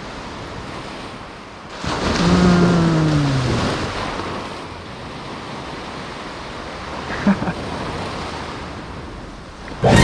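Ocean waves washing onto a beach, with wind buffeting the microphone; a larger wave surges in about two seconds in.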